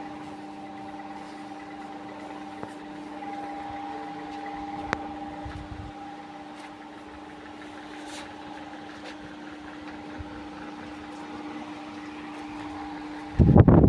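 Steady hum of a small motor holding two constant tones, broken near the end by a brief loud low rumble lasting about half a second.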